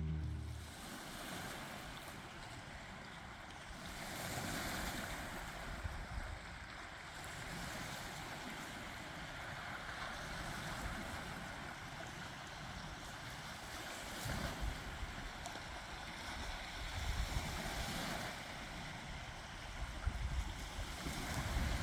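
Lake Huron waves washing onto the shore, with wind gusting against the microphone as uneven low rumbles.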